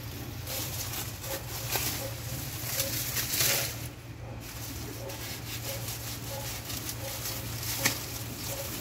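Banana leaves rustling as the bunch is handled, loudest about three seconds in, and a single sharp knock of a knife blade striking the banana stalk near the end. A bird repeats a short note about two to three times a second throughout.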